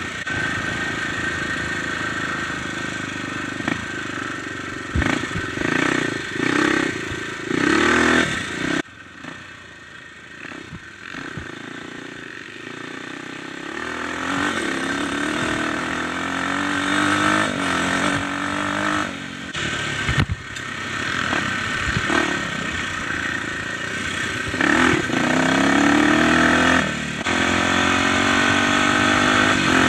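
Dirt bike engine revving up and down as it is ridden along a rough trail, with the pitch climbing through gear changes and a few sharp knocks. It drops quieter for a few seconds about nine seconds in, then rises again through repeated accelerations.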